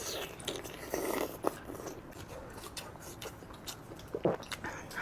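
A person biting and chewing food close to the microphone: irregular crisp clicks and short crunches, with one sharper crack near the end.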